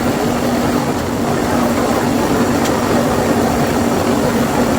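Honda Monkey's single-cylinder four-stroke engine running at a steady cruising speed, with wind rushing over the microphone on the moving motorcycle.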